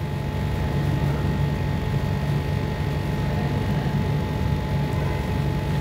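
Steady low hum with an even background hiss and a faint steady high whine, unchanging throughout.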